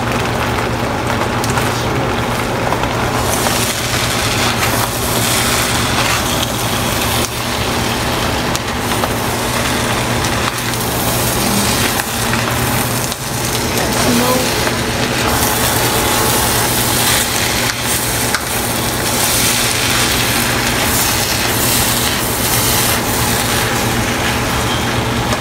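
Spatula stirring and scraping a wokful of shrimp fried rice in a nonstick wok, the rice hissing as it is tossed, in stretches over a steady low hum.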